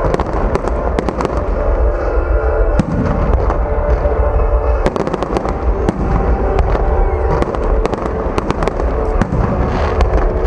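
Fireworks display: frequent bangs and crackling bursts over a continuous low rumble, with music playing alongside.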